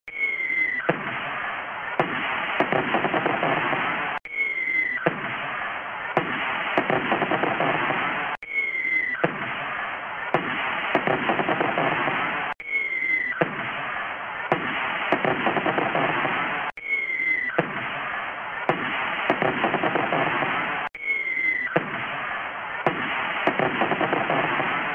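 Fireworks: a short falling whistle, then a dense rumble of distant booms and sharp bangs. The same roughly four-second sequence repeats about every four seconds, six times over.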